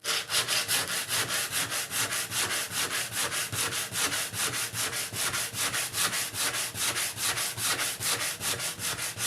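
Sandpaper rubbed by hand in rapid, even back-and-forth strokes over a wooden joint. It is sanding down a hardened fill of fast glue and powder so that it sits flush with the wood surface.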